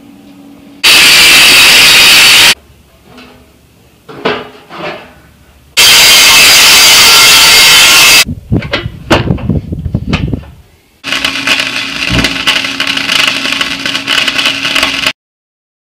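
Angle grinder with a cut-off wheel cutting sheet steel in two loud bursts of about two seconds each, then pieces of metal clanking, then about four seconds of crackling arc welding that cuts off abruptly.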